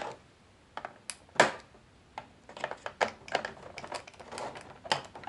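Scissors snipping the rubber bands that hold a toy figure in its clear plastic packaging tray: a string of irregular sharp clicks and snips, the loudest about a second and a half in.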